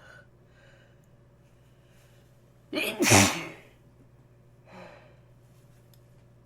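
A person with a congested nose sneezing once, loudly, about three seconds in: a short lead-in followed at once by the main burst. A softer breath follows about a second and a half later.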